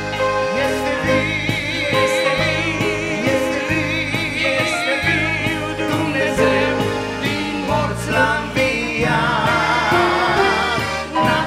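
Male vocals singing a Romanian gospel song with a wide vibrato on held notes, accompanied by a piano accordion.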